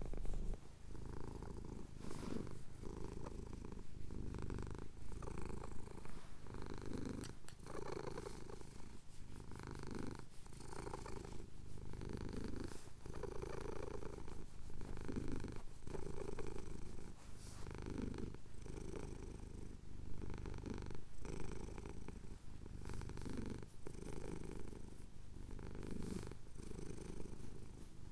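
Domestic cat purring steadily while having his chin scratched, the purr swelling and pausing briefly with each breath, about once every second or so.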